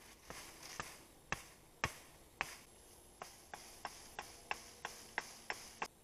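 Repeated sharp knocks of a small hand tool striking wood, about fourteen in all: the first few are about half a second apart and the loudest, then after a pause they quicken to about three a second.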